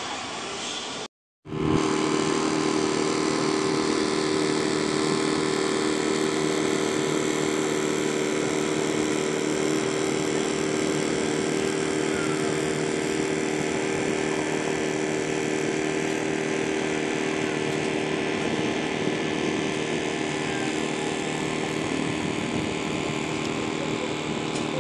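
A steady motor drone with a constant pitch, starting after a brief dropout about a second in and running on without change.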